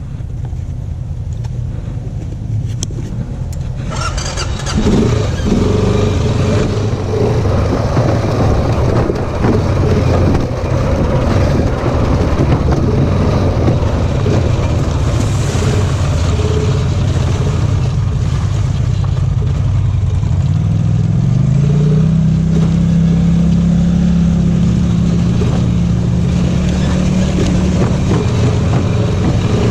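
Off-road vehicle engine running under load on a muddy trail, with a louder rush of noise coming in about four seconds in; about twenty seconds in the engine revs up and holds at higher revs.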